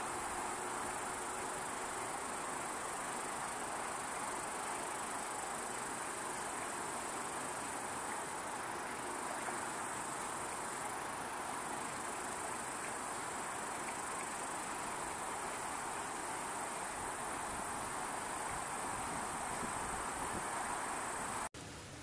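Steady, continuous chorus of insects, a high-pitched trilling hiss with no breaks, which cuts off suddenly near the end.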